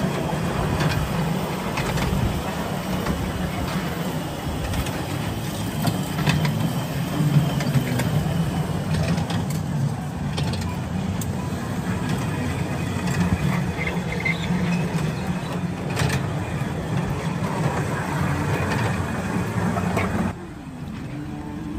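Miniature ride-on train running along its backyard track: a steady mechanical rumble with scattered clicks and knocks, which drops away suddenly near the end.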